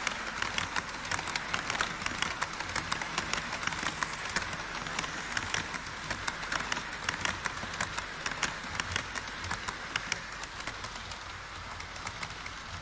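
HO scale model E5 series Shinkansen running on KATO Unitrack over a model truss bridge: rapid, irregular clicking and rattling of the wheels on the track over a steady running hiss, growing quieter near the end as the train moves away.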